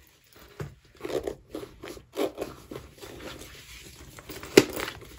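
Irregular rustling and scraping from hands handling the bag strap and the phone that is recording, with one sharp click about four and a half seconds in.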